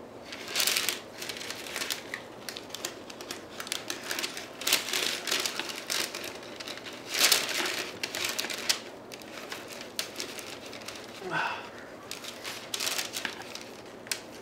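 A wooden stick scraping and prying stiff, half-set melted polyethylene out of a metal can, with the paper liner of a wooden mold crinkling in irregular bursts as the plastic is pressed into it.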